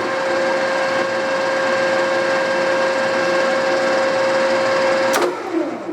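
Standard Modern Series 3000 lathe spindle running at 340 RPM, a steady gear whine from the headstock. About five seconds in it is switched off with a click, and the pitch falls as the spindle coasts down.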